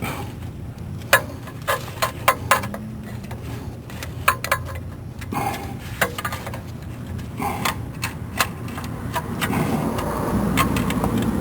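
Irregular sharp metallic clicks, taps and rattles of hand tools working on the car during a starter replacement, over a steady low hum. A denser rustling, scraping noise builds near the end.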